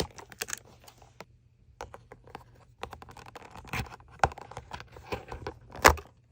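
Irregular small clicks and scrapes of a mechanical keyboard switch being handled and taken from its cardboard advent-calendar compartment, with one sharper click near the end.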